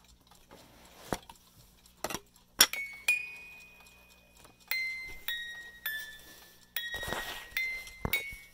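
Alarm clock's music box comb sounding single ringing metal notes, each at a different pitch, coming irregularly about every half second to second and a half. A few knocks and clicks of handling come before the first note.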